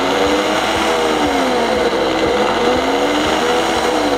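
Vosco HS-200 bar blender's 1600 W motor running loudly, its pitch rising and falling twice as the speed is turned up and down by hand on the manual control.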